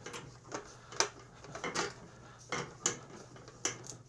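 Irregular metallic clinks and taps of hand tools and parts against metal, about six separate sharp knocks.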